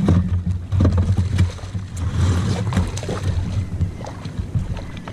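Outboard motor idling with a low steady hum, under wind buffeting the microphone and scattered knocks and splashes.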